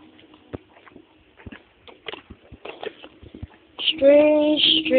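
Faint, steady low hum of unknown origin, with scattered light clicks and taps over it; a person's voice comes in loudly near the end.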